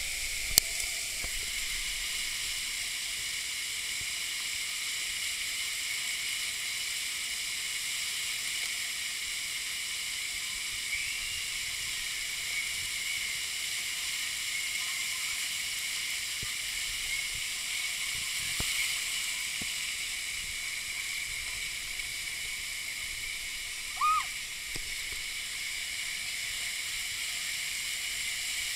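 Steady high hiss of running and spraying water, with a short chirp-like tone about three-quarters of the way through.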